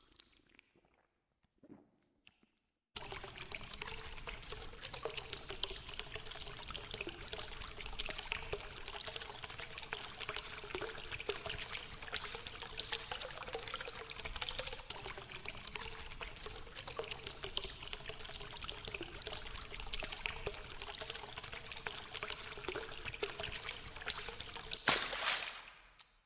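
Water pouring and trickling steadily, starting abruptly about three seconds in after near silence. It swells briefly louder near the end, then cuts off.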